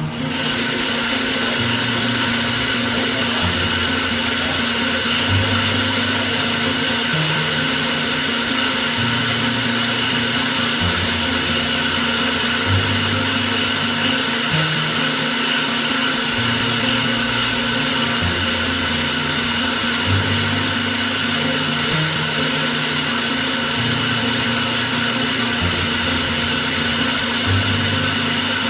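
A power tool running steadily and without break, a continuous whir, over background music with a slowly changing bass line.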